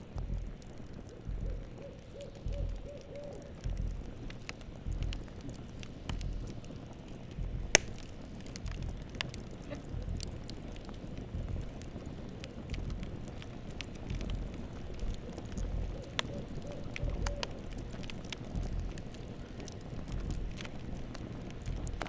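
Campfire crackling with scattered sharp pops, one louder pop about a third of the way in, over a low pulsing rumble. Twice, near the start and again past the middle, an owl gives a short run of about five quick hoots.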